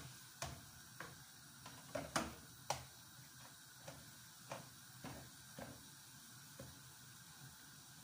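Spatula knocking and scraping against a non-stick pan while stirring noodles, a series of irregular sharp clicks, the loudest about two to three seconds in.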